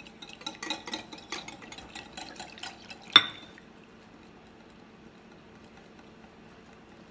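Wire whisk clicking rapidly against a glass mixing bowl as tapioca starch is whisked into a thin batter. The clicking stops about three seconds in, after one sharp, ringing glass clink.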